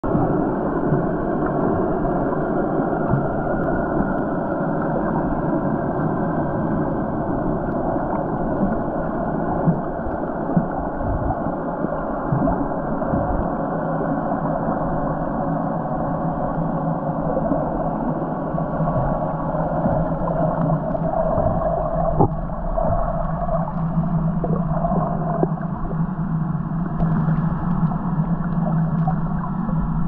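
Underwater ambience picked up by a camera below the surface: a steady, muffled rush of water with a few sharp clicks around ten seconds in and again a little past twenty seconds. In the last third a low steady hum joins it.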